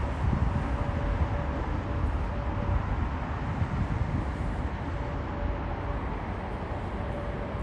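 Jet engines of a twin-engine airliner climbing away after takeoff, heard from the ground as a steady low rumble that eases slightly toward the end.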